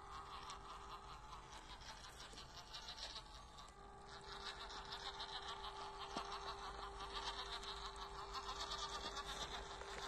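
Electric motor and two-speed gearbox of a 1/16-scale WPL RC crawler truck whirring with a steady whine. It drops away about half a second in and picks up again about four seconds in.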